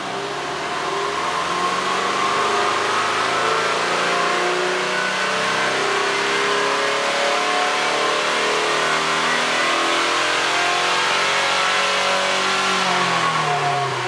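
Exhaust note of a Subaru Impreza Sports Wagon's 1.5-litre flat-four, free-revved while standing with a warm engine. Revs build over the first couple of seconds and are held high and wavering, then the throttle is released near the end and the revs fall.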